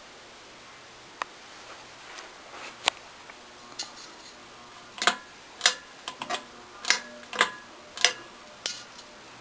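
A run of sharp clicks over a faint steady hum: a few scattered ones at first, then from about halfway in a loud click roughly every half second, seven or so in all.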